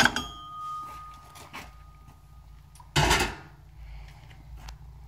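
Sharp metal clank with a ringing tone that fades over about two seconds, then a rough metallic clatter about three seconds in, as the big 3/4-drive socket and extension are worked on and off the truck hub's outer spindle nut. A low steady hum runs underneath.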